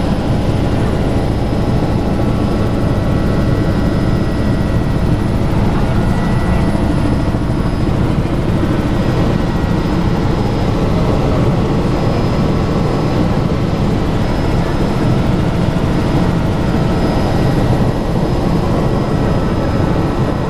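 Helicopter in steady cruising flight, heard from inside the cabin: a constant engine and rotor drone with a thin, steady high whine over it.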